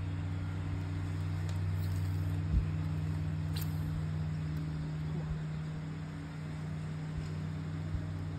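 Steady low motor hum, with a single thump about two and a half seconds in.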